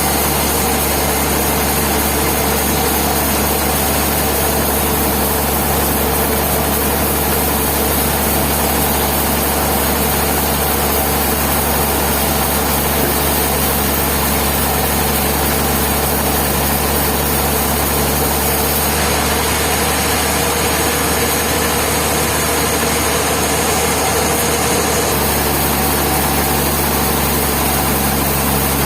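Sawmill machinery running steadily: a loud, constant mechanical hum. Its tone shifts slightly about two-thirds of the way through.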